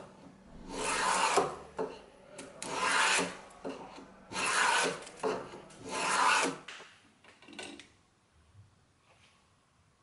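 Small hand plane taking shavings from a thin cypress strip: four long shaving strokes, one about every second and a half.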